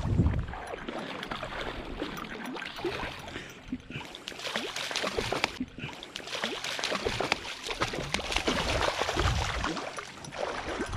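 Hooked pink salmon splashing and thrashing in shallow, flowing river water, a run of irregular sharp splashes over the steady rush of the current.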